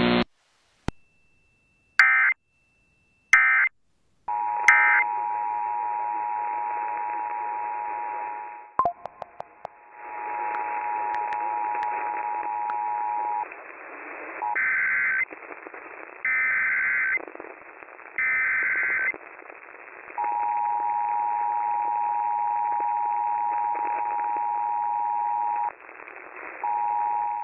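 Emergency Alert System tones over radio static. Three short data bursts sound a couple of seconds in, then the two-tone attention signal holds steady for about nine seconds. Three more data bursts follow, then the two-tone signal again for about six seconds, and it starts once more near the end.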